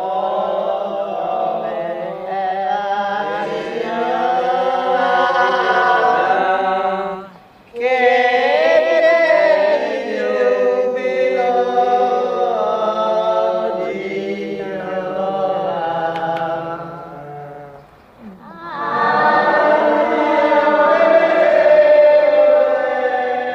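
A choir of voices singing a chant, breaking off briefly about seven seconds in and again about eighteen seconds in.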